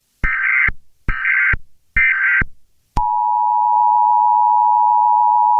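Emergency Alert System SAME header: three short bursts of warbling digital data tones, about half a second each, followed about three seconds in by the steady two-tone EAS attention signal. It is the alert that opens a severe thunderstorm warning broadcast.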